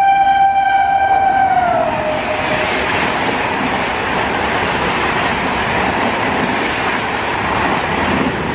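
Gatimaan Express passing at about 160 km/h. Its locomotive's steady horn drops in pitch as it goes by, about two seconds in, and then stops. The rest is the loud rush of the coaches passing at high speed.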